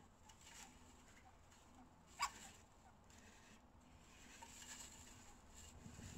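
Chinchilla mother and newborn kits shuffling faintly in hay, with one brief, sharp squeak from a kit about two seconds in.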